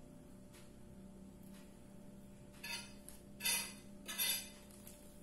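Three short scrapes and clinks of a spoon against a ceramic plate, about two-thirds of a second apart, as chopped celery is gathered off it. A faint steady hum runs underneath.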